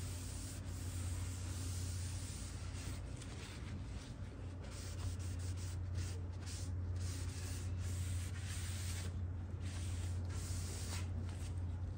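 A cloth rag rubbing gel stain onto the wooden side of a dresser in wiping strokes, with a steady low hum underneath.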